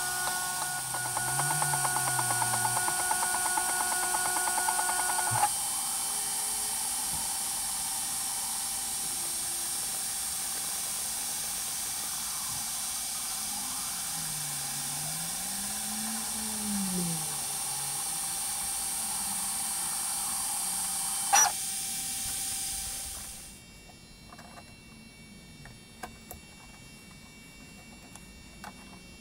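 Ortur Laser Master 3 laser engraver running: a steady fan hiss with the stepper motors whining, their pitch rising and falling as the head traces curves. A sharp click, then the machine noise drops away near the end, leaving a few light knocks as a plywood sheet is handled.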